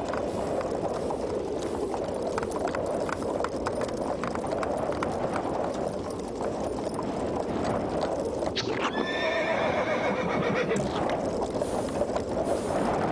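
Horse sound effects of an animated soundtrack: hoof clops, then a whinny about eight and a half seconds in. A steady storm wind runs underneath.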